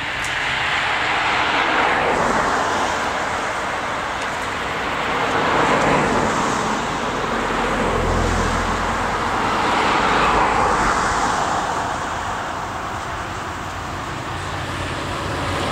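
Road traffic passing nearby: tyre and engine noise from several vehicles that swells and fades one after another, with a heavier, lower rumble from one of them about eight seconds in.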